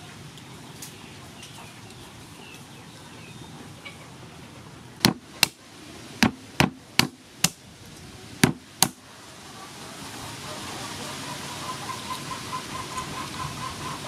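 A wooden pestle striking cooked crab claws on a wooden board to crack the shells: eight sharp knocks, mostly in quick pairs, over about four seconds in the middle.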